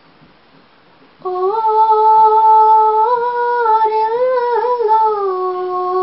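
A woman singing a Limbu hakpare (samlo) solo, without accompaniment. After a pause of about a second she holds one long drawn-out note, with a brief wavering ornament in the middle.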